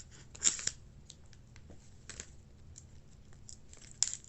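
Heavily taped mail packaging being pulled and torn open by hand: scattered crinkling and rustling, with louder rips about half a second in, around two seconds in, and again near the end.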